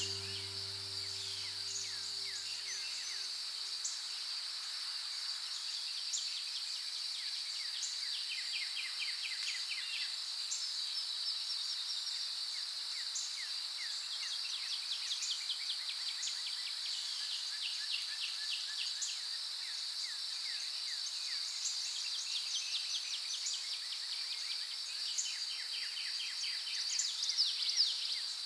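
Outdoor insect chorus: a steady high-pitched drone with many short chirping trills repeating over it. A soft music chord fades out about three seconds in.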